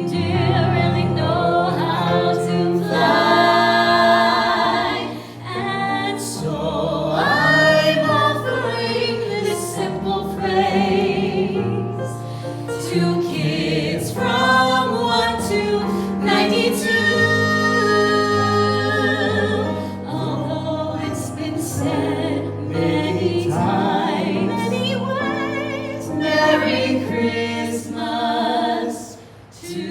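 Music: several voices singing a slow ballad together over sustained accompaniment, with short pauses between phrases about five seconds in and near the end.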